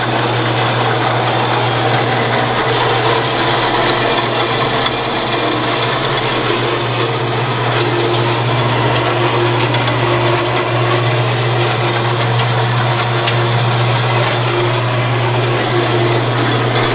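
A 7" x 12" horizontal metal-cutting band saw running steadily under power from its 1 hp, 115 V electric motor. It makes a steady low hum under a whirring mechanical noise.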